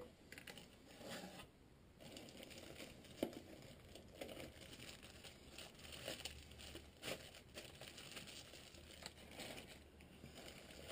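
Faint rustling and crinkling of a cardboard box's flaps and a clear plastic bag being handled as a fishing reel is unpacked, with a sharper tap about three seconds in.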